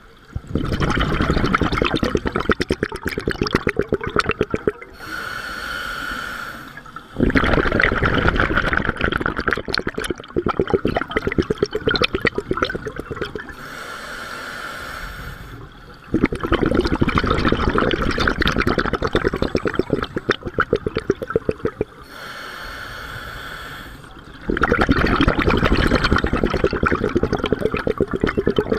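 Scuba diver breathing through a regulator underwater: four long exhalations of crackling, bubbling air, each several seconds, alternating with three shorter, quieter inhalations that hiss through the regulator.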